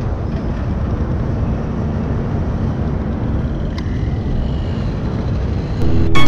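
A large car ferry's engines running: a steady low rumble and hum under a constant rushing noise. Music comes in just at the end.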